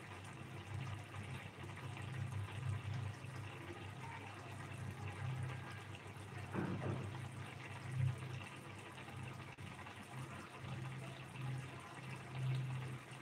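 Thick egg curry gravy simmering in a pan, bubbling and plopping unevenly, with a few louder plops.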